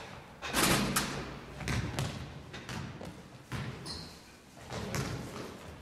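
A basketball thudding on a gym floor several times at irregular intervals, with a brief high squeak near the middle.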